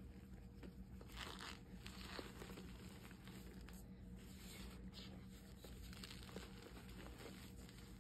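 Hands crumbling and rubbing reformed gym chalk into powder: faint soft crunches and powdery rustles, a little louder about a second and two seconds in, over a steady low hum.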